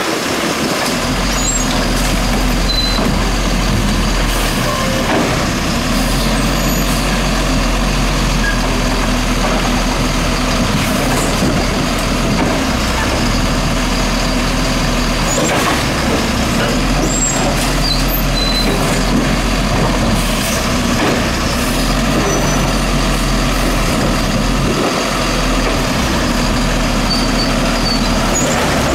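Peterbilt 320 garbage truck with a Labrie Automizer body, its diesel engine running with a steady low hum, and a few short air hisses and faint squeaks.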